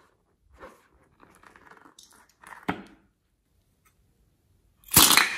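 Hands squeezing and rubbing a slime-filled rubber balloon, with soft squeaks and rustles and a sharp click. About five seconds in comes a loud, sudden snip as scissors cut the balloon's neck.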